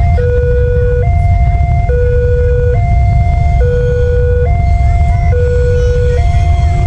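Railway level-crossing warning siren alternating between a high and a low tone, each held just under a second, over a steady low rumble. It signals that a train is approaching and the barrier is closed.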